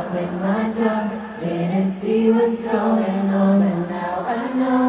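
Live concert singing over backing music, the melody moving in long held notes, picked up from among the audience.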